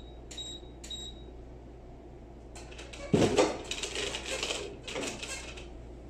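A couple of short electronic beeps in the first second. About three seconds in comes a thump, then about two and a half seconds of rustling and clatter as the lid of a steam ironing press and a garment are handled.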